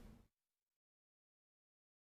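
Near silence: the fading tail of a sharp click sound effect dies away within the first second, then digital silence.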